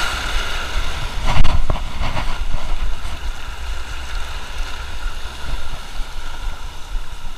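Shallow surf washing and breaking around the wader, with wind rumbling on the microphone; a wave surges loudest about a second and a half in.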